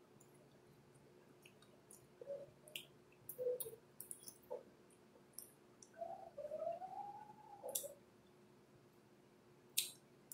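Quiet close-up eating sounds: scattered sharp, wet mouth clicks and smacks while chewing a forkful of food. About two-thirds of the way through, a faint pitched sound rises and then falls over a couple of seconds.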